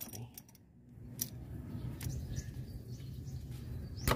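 A few sharp small clicks of pliers working a spring hose clamp, the loudest near the end, over a steady low hum and faint bird chirps.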